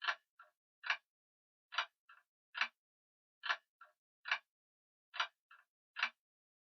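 Grandfather clock ticking: sharp tick and tock about a second apart, with a fainter click just after the tick, the three-click pattern repeating about every second and a half.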